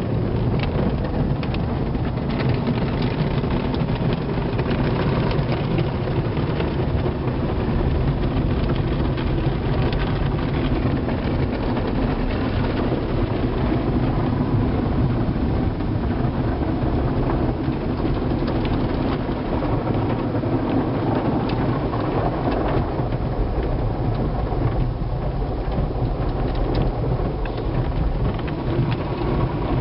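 Automatic car wash heard from inside the car: water spray and soft cloth brush strips slapping and rubbing across the windshield and body, over a steady deep rumble.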